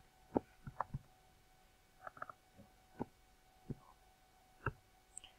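Irregular keystrokes on a computer keyboard, about a dozen separate clicks with a quick cluster about two seconds in, over a faint steady hum.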